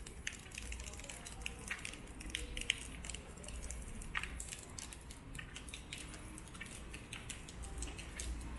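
Rain falling: many irregular, sharp drop ticks close to the microphone over a low steady rumble.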